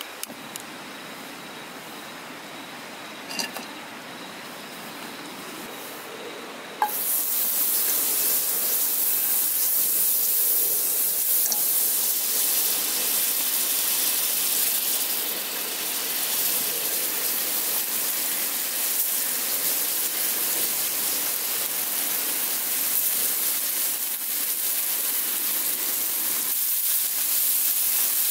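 Butter sizzling in a hot nonstick frying pan. A quieter steady hiss with a few light clicks gives way, about seven seconds in, to a sudden loud sizzle that carries on with only a brief dip midway.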